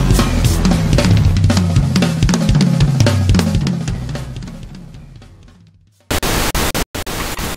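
Drum kit being played: bass drum, snare and cymbals over a low sustained bass. It fades out over about two seconds and stops. Just after 6 seconds a loud, hissy noise cuts in abruptly and drops out for a moment before carrying on.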